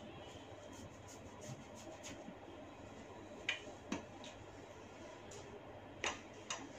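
Neck joints being cracked by a masseur: two sharp pops about half a second apart a little past halfway, then two more near the end, over a faint steady hiss.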